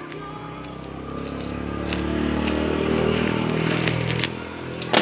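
A passing motor vehicle's engine, a steady hum that grows louder toward the middle and fades near the end. A sharp click comes just before the end.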